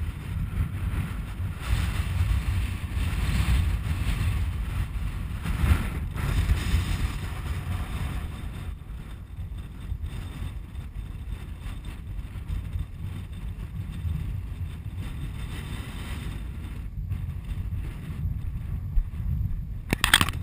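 Wind buffeting the camera microphone, a gusting low rumble with swells of hiss, easing after the first several seconds. A quick cluster of knocks near the end.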